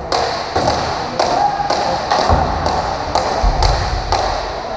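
Sharp knocks in a steady rhythm, about two a second, in a sports hall.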